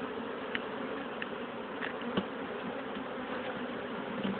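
A honey bee colony buzzing in a steady, dense drone around the opened hive, the bees stirred up by the hive work. A few light clicks sound over it during the first half.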